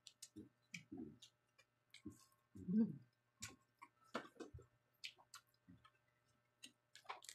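Quiet eating sounds at the table: scattered soft clicks and smacks of chewing and handling food, with a few brief low voice sounds, the loudest a little before three seconds in.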